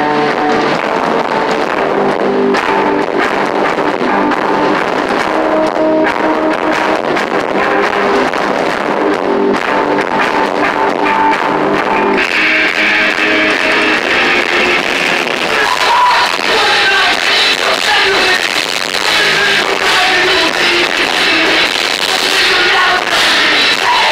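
Heavy metal band playing live, electric guitar and drums through a club PA. About halfway through, the playing gets fuller and brighter as the band goes into a heavier section.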